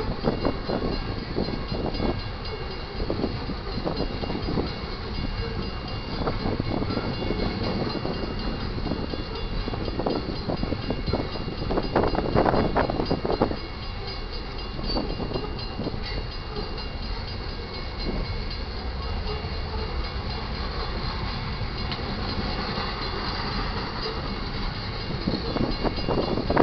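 Union Pacific loaded freight train rolling past at a grade crossing: a steady rumble of wheels on rail with repeated clicks and knocks as the cars go over the rail joints.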